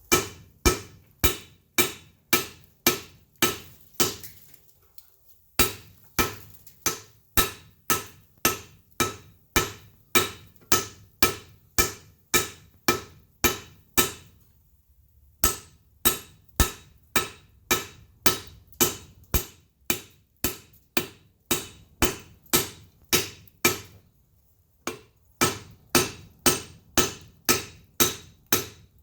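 Blacksmith's hammer striking hot wrought iron on an anvil, a steady run of blows about two and a half a second, each with a short metallic ring, broken by three brief pauses. The hammering is setting a forge weld in the wrought iron.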